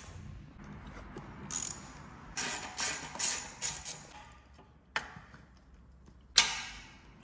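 Hand ratchet wrench clicking in several short runs as it turns motorcycle exhaust bolts, then one sharp metallic clank with a brief ring near the end.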